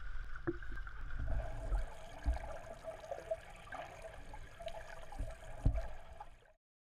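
Swimming-pool water heard through a camera at and below the surface: muffled sloshing and gurgling with a low rumble and a couple of dull thumps. It cuts off suddenly near the end.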